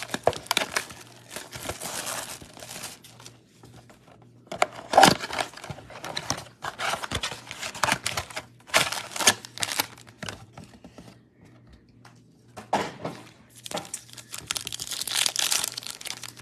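Plastic trading card pack wrappers crinkling and being torn open in irregular bursts, with short pauses between.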